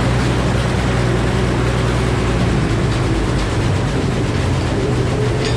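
Old Frick sawmill running steadily: its 48-inch circular head saw spinning, with the low hum of the power unit driving it.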